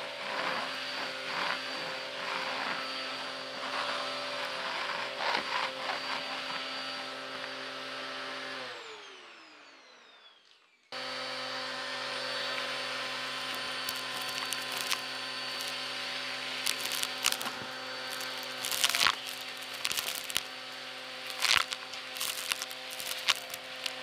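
Vacuum cleaner running over a rug, sucking up gritty debris that crackles and clicks through it. About nine seconds in its motor winds down, falling in pitch to near silence. About two seconds later it is suddenly back on at full speed, with loud crunchy pops of debris being sucked up near the end.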